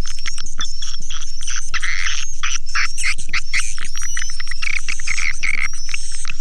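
Swiftlet calling sound: a dense chorus of swiftlets twittering, with rapid overlapping chirps and buzzy trills broken by short, high, upward-sliding whistles. It is the kind of lure call played to draw swiftlets to roost and nest in a swiftlet house.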